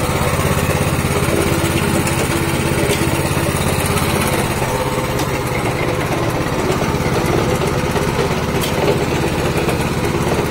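Small single-cylinder petrol engine on a sugarcane juice cart running steadily at an even speed.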